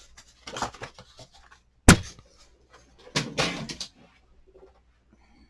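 A sharp, loud knock as a hand bumps into the camera, followed about a second later by a brief clattering rattle.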